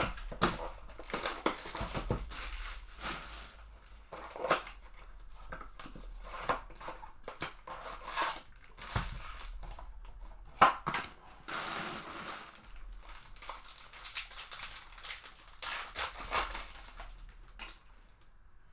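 Trading-card packaging being handled and torn open: irregular crinkling and crackling of wrappers and cardboard with sharp clicks, one especially loud snap about eleven seconds in.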